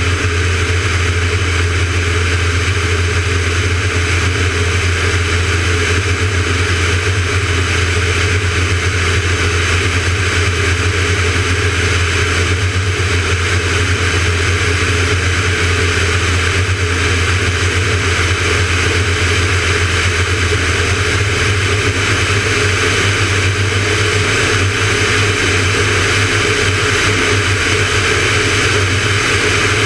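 Van's RV-9A's piston engine and propeller droning steadily in level flight, heard from a camera outside on the wing, with a steady rush of airflow over it.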